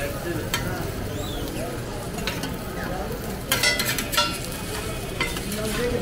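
Eggs and meat sizzling on a large flat iron griddle, with a metal spatula scraping and clacking against the iron every second or two. A quick run of louder clacks comes about halfway through.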